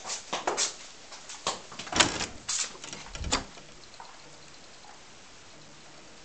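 Wooden door being handled: a run of latch clicks and knocks, with a heavier thud about two seconds in and another just after three seconds.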